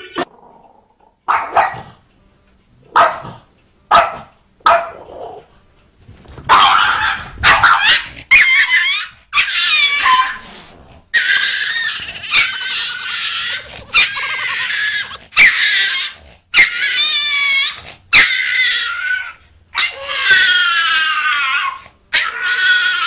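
A small dog barking: a few short, separate barks, then from about six seconds in a long run of drawn-out, high-pitched calls that waver in pitch.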